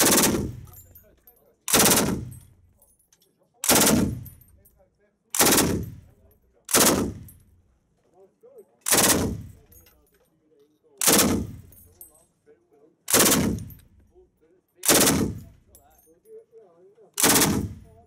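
French AA52 general-purpose machine gun, belt-fed and on its bipod, firing about ten short bursts, roughly one every two seconds, each ringing off the range walls as it fades.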